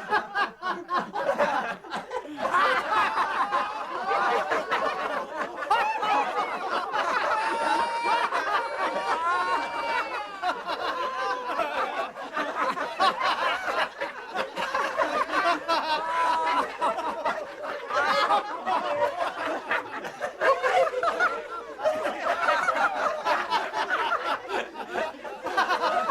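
A group of men laughing together, several voices overlapping in continuous chuckles and snickers.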